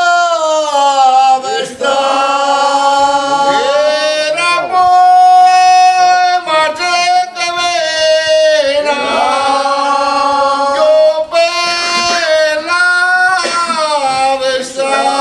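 A group of men singing a slow devotional song in unison, several voices together holding long notes and sliding from one pitch to the next.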